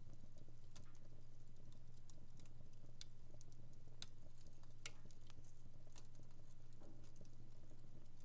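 Wood fire crackling in a fireplace: irregular sharp snaps and pops, a few of them louder, over a steady low hum.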